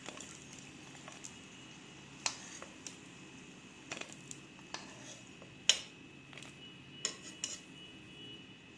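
Metal spatula clinking and scraping against a metal wok of hot oil as fried chickpea-flour fritters are lifted out: scattered sharp clicks at uneven intervals, the loudest a little past the middle.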